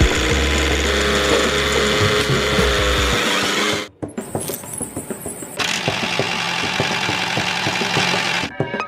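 A small motor whirring steadily, which cuts off abruptly about four seconds in, followed by a stretch of rapid clicking and rattling.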